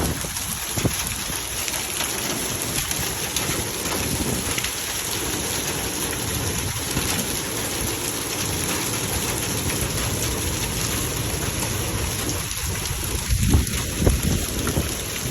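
Hailstorm: a dense, steady clatter of hailstones and rain pelting down. A few low rumbles break in near the end.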